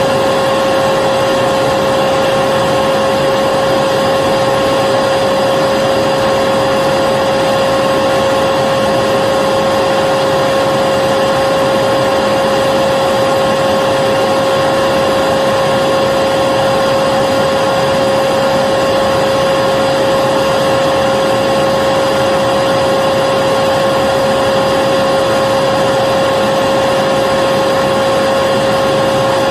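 Vacuum cleaner motor running continuously as a steady, unchanging whine with a strong hum, played as white noise to lull a baby to sleep.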